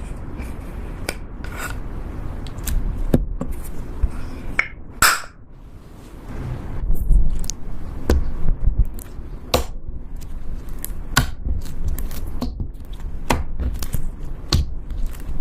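Irregular clicks, taps and scrapes of small objects being handled, over a low rumble.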